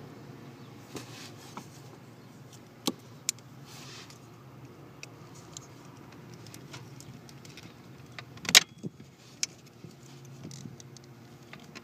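A small blade cutting back the plastic sheathing on a car's OBD2 port wiring harness: light scrapes and scattered clicks of plastic, with one sharp snap about two-thirds of the way through, over a steady low hum.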